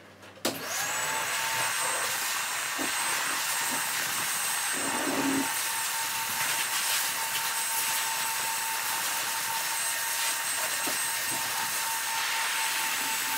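An electric blower motor switches on about half a second in. Its whine rises briefly, then it runs steadily as a loud, even rush of air with a high whine.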